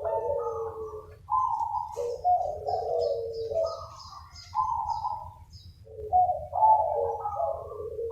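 Several zebra doves cooing at once, their rolling stepped phrases overlapping as the birds answer one another. From about two seconds in, a fast run of high, short chirps from a smaller bird sounds over them for a few seconds. A low steady hum lies underneath.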